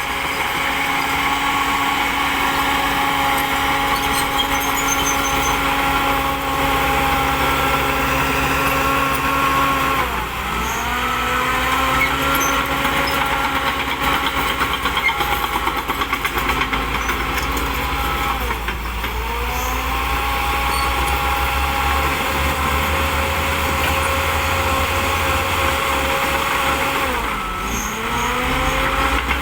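Shantui DH10B2 mini bulldozer's diesel engine running steadily, its pitch dipping sharply and recovering three times, roughly every eight or nine seconds.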